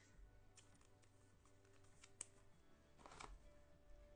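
Near silence with a few faint, sharp clicks and taps.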